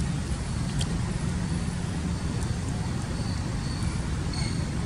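Steady low background rumble, like distant road traffic, with a faint thin high tone coming and going.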